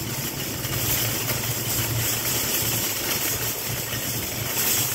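Car engine running steadily with a low hum, under road and wind hiss, heard from inside a car driving slowly.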